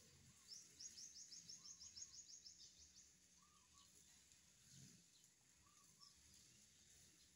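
Quiet outdoor background with a small bird's rapid high trill of many short notes lasting about two and a half seconds, starting about half a second in, and a few soft lower chirps.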